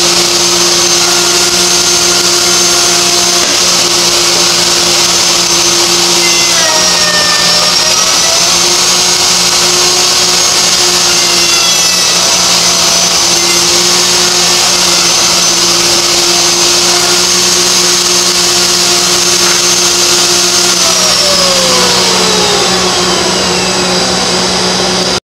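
Table-mounted wood router running with a dust collector's suction motor running alongside. The router's pitch dips for a few seconds and recovers. Near the end the router is switched off and winds down while the dust collector keeps running.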